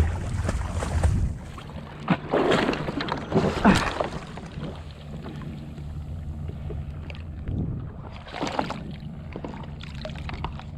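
Water splashing and sloshing around an inflatable paddleboard in irregular swishes, over a steady low wind rumble on the microphone.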